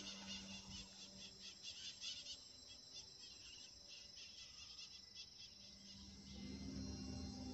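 Faint, steady drone of a distant RC model airplane engine running at full throttle, growing louder from about six seconds in. Over it, a chorus of high, quickly repeated insect chirps runs through the first five seconds or so.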